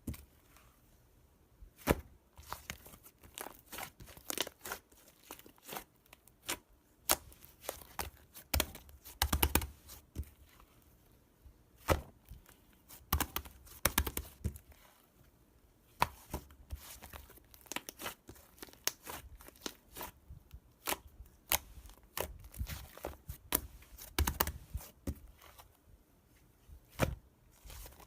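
Close-up handling noises: irregular clicks, taps and crinkling or tearing sounds in quick, uneven clusters, with a few duller thuds mixed in.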